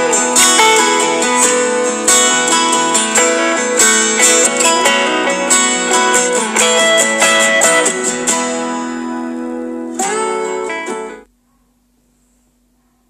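Background music played on acoustic guitar, plucked and strummed notes. A last chord is struck about ten seconds in and is cut off abruptly a second later, leaving near silence.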